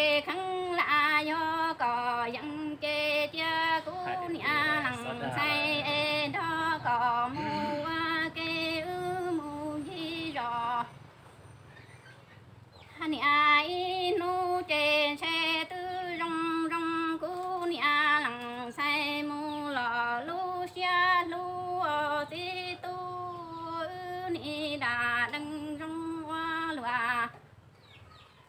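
A woman singing Hmong kwv txhiaj, traditional courtship poetry, unaccompanied, in long phrases of held, wavering notes. The singing breaks off for about two seconds around eleven seconds in, and briefly again near the end.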